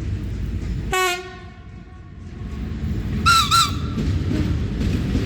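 Georgian Railway train horns: a low horn note breaks off about a second in and dies away, then two short high-pitched toots sound in quick succession about three seconds in, over the rumble of the train.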